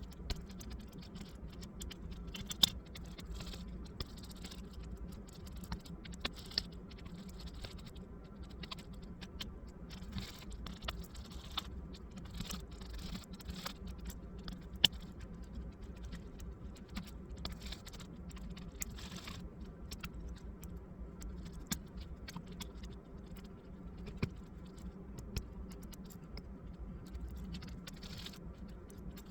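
Light, irregular clicks and taps of small laptop parts and tools being handled while a Dell laptop is worked on, with a few sharper clicks, over a steady low hum.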